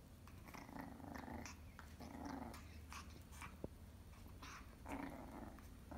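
Shih Tzu puppy growling in play while mouthing a ball, in three short low bursts with small clicks and scuffs between them.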